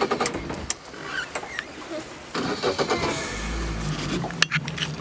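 Speed boat's outboard motor starting up about halfway through and then running at idle, with a few sharp clicks and knocks around it.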